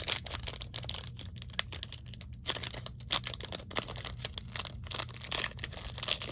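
Wrapper of a Panini Chronicles football card pack being torn open and crinkled: a quick, irregular run of crackles and rustles.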